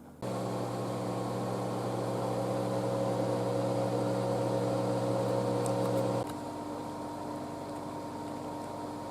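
Countertop kitchen appliance's fan motor running with a steady hum. About six seconds in it drops suddenly to a quieter hum.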